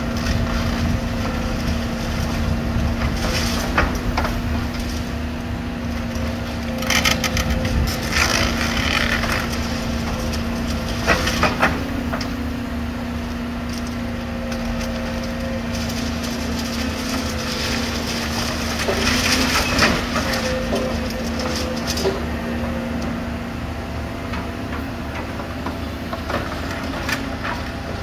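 Volvo demolition excavator's diesel engine running steadily under load, while its hydraulic crusher jaws crunch and crack concrete rubble in repeated bursts.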